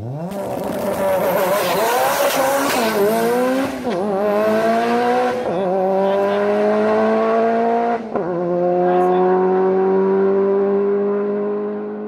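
Car engine accelerating hard through the gears: the revs climb, drop sharply at upshifts about four, five and a half and eight seconds in, then climb slowly again. A high whine sits over the first few seconds.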